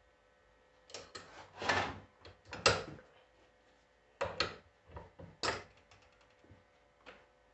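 Irregular knocks, clacks and short scrapes of metal starter-motor parts and tools being handled on a workbench while the solenoid is fitted. The loudest knock comes near the middle.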